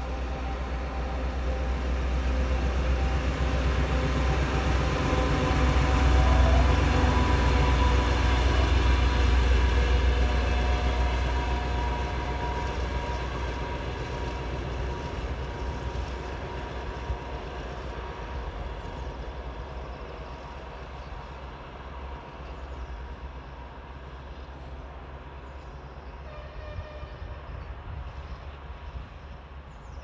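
TEM14 shunting diesel locomotive hauling two wagons passes and draws away: a deep diesel engine drone with a few steady whining tones above it, loudest about six to ten seconds in, then slowly fading as it recedes.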